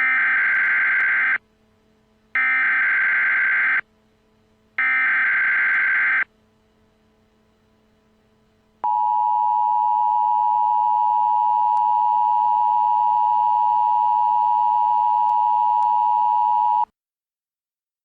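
Emergency Alert System tones: three short bursts of warbling SAME header data tones, then the steady two-tone attention signal held for about eight seconds and cut off sharply. Together they announce the start of a new emergency alert.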